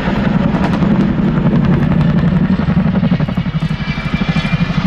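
Boeing CH-47 Chinook tandem-rotor helicopter flying overhead in a steep banking turn. Its twin rotors beat in a loud, rapid, even pulse.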